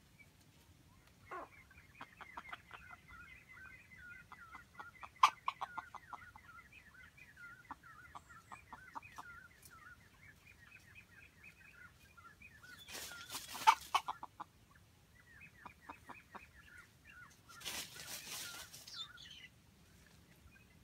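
Wild junglefowl clucking: a long run of quick, clipped clucks over a thin, higher, held call, with a few sharper louder clucks. Two short, noisy bursts break in, one about two-thirds of the way through and one near the end.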